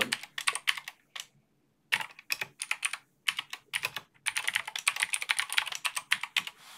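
Typing on a computer keyboard: quick key clicks in short bursts with brief pauses, then a longer steady run of keystrokes from about four seconds in.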